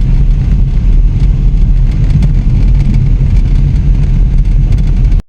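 A car being driven, its engine and road noise making a loud, steady low rumble that cuts off suddenly at the end.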